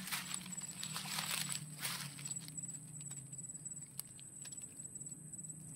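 Quiet outdoor ambience: soft rustling in the first couple of seconds and a few light clicks, over a steady high-pitched drone and a low hum.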